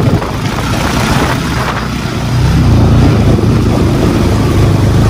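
Motorcycle engine running on the move under a steady rushing noise; the engine hum grows louder about two and a half seconds in.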